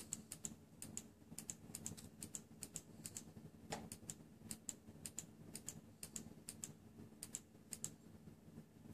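Faint, irregular small clicks and ticks of fingers working a freshly wrapped vape coil's wire on a metal screwdriver shaft, tightening the coil.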